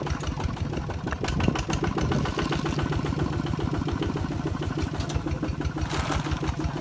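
Small engine running steadily with a regular low thudding beat, and a brief hiss about six seconds in.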